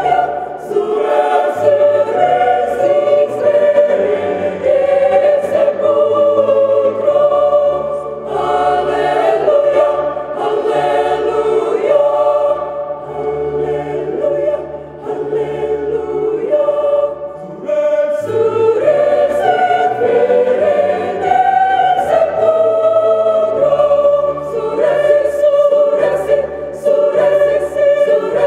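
Mixed choir of women's and men's voices singing in several parts, holding chords in harmony over a low bass line.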